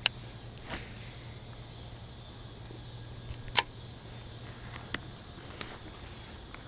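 Insects chirring steadily in the grass, with a few short sharp clicks, the loudest a little past halfway through.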